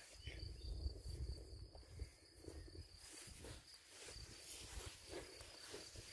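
Insect stridulating in a steady, high-pitched trill, with a low uneven rumble on the microphone underneath.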